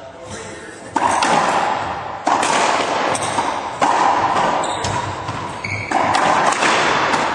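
Racquetball rally in doubles play: four loud, sharp hits of the ball by racquets and off the court walls, about one to two seconds apart. Each hit rings on in the echo of the enclosed court.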